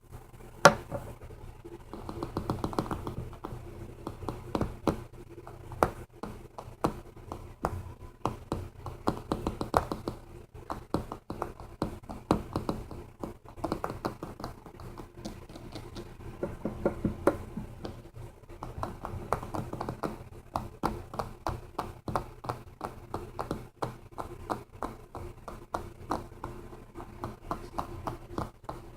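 Fingers tapping on objects for ASMR, with quick, uneven runs of light taps, several a second, and one sharper tap about a second in. A steady low hum sits underneath.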